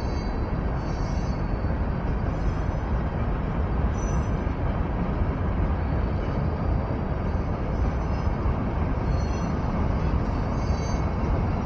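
Freight train rolling through a road crossing: a steady, continuous rumble of the train passing. A faint high tone comes and goes about every second and a half.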